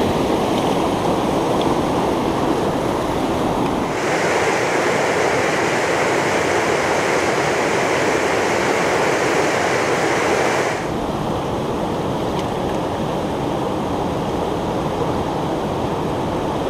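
River rapids rushing loudly and steadily over rocks. About four seconds in the sound turns brighter and hissier, and near eleven seconds it drops back to a fuller, lower rush.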